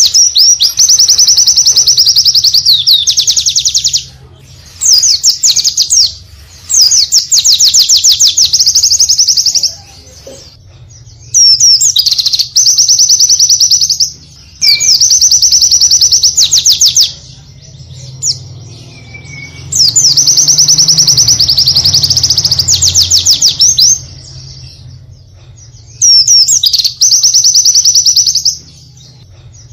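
White-eye (pleci) singing rapid, high trilled bursts of one to three seconds each, about eight of them, separated by short pauses.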